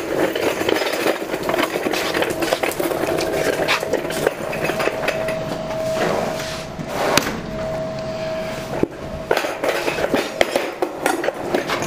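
Knocks and rattles of a wheeled shop stool being handled and carried over a concrete floor, with footsteps and the casters clattering, under a steady hum that comes and goes.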